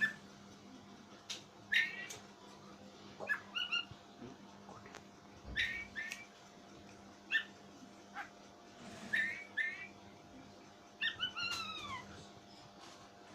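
Oriental magpie-robin giving short, strange calls every second or two, some sliding down in pitch, with a few sharp clicks between them.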